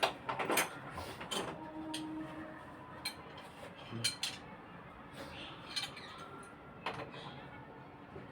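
Light clinks and knocks of hard objects being handled: a handful of separate short strikes spread out with gaps between.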